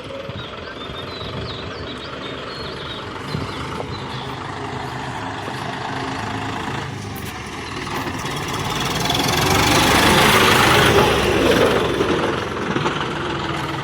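Diesel tractor engine running steadily, growing louder and harsher about nine seconds in, then easing near the end.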